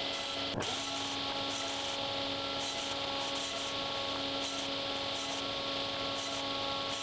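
SawStop table saw running with a steady hum of fixed tones, briefly broken about half a second in.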